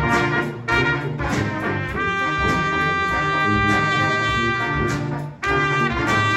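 Brass band of saxophones, trumpet, two trombones and sousaphone playing: short repeated chords for about two seconds, then one long held chord that cuts off sharply about five seconds in, after which the band comes straight back in.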